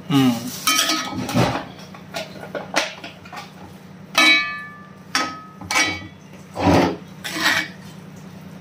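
Steel spoon stirring thick mashed potato filling in a heavy iron kadhai, knocking and scraping against the pan about eight times, one knock with a short metallic ring.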